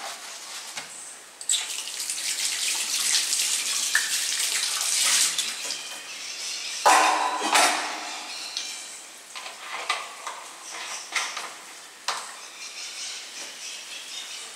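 Kitchen tap running into the sink while a dish is rinsed and scrubbed with a sponge. The water stops, then about seven seconds in comes one loud clatter of a dish set down, followed by a few lighter knocks of things being handled.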